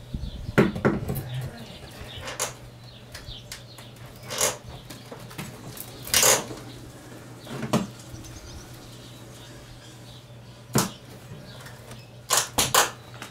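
Irregular knocks, cracks and scrapes as a long steel pry bar works loose old wooden roof boards overhead: about ten separate strikes, with three in quick succession near the end. A steady low hum runs underneath.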